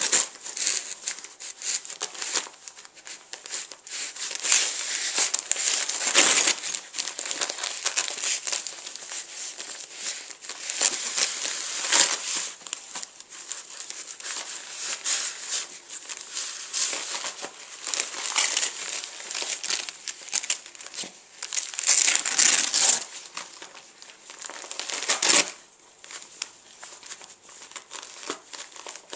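Wrapping paper crinkling and ripping as a small dog tears open a present with its mouth and paws, in uneven rustles with louder rips now and then; it quietens in the last few seconds.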